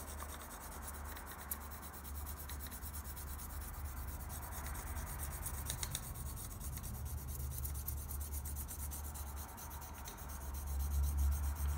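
Coloured pencil shading on paper, a steady scratchy rubbing as the lead is stroked back and forth. A low rumble grows louder near the end.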